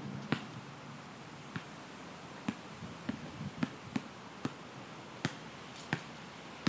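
Basketball dribbled on an outdoor asphalt court: about a dozen sharp bounces at an uneven rhythm, bunched more quickly around the middle.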